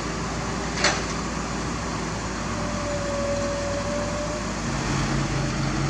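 Kobelco crawler crane's diesel engine running steadily under a hook lift, with a single sharp click about a second in; the engine note shifts slightly near the end.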